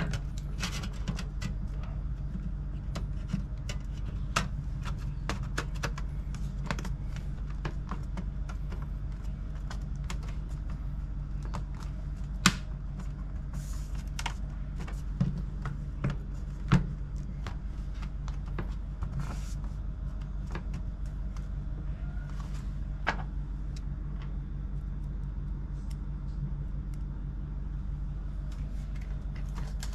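Irregular small clicks and taps of hand tools and small laptop parts being handled, over a steady low hum. A few sharper clicks stand out around the middle.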